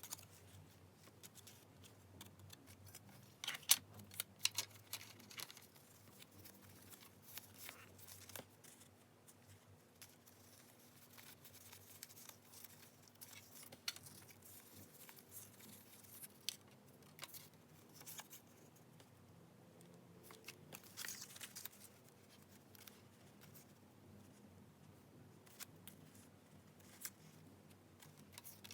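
Quiet paper handling for journal decorating: soft rustling of paper with scattered sharp little clicks, a few louder ones about four seconds in.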